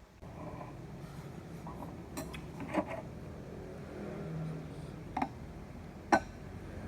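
A few sharp clinks and knocks of hard objects being handled, the loudest about six seconds in, over a steady low rumble.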